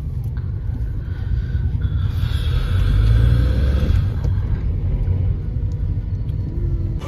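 Steady low road-and-engine rumble inside the cabin of a moving Volkswagen Ameo car, swelling about three seconds in and then easing.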